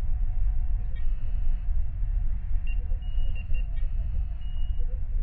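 Sci-fi starship bridge ambience: a steady low engine hum under short, high electronic console beeps and chirps. The beeps come in a cluster about a second in and a run of several more near the middle.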